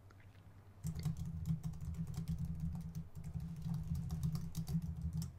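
Typing on a computer keyboard: a quick, continuous run of keystrokes that starts about a second in.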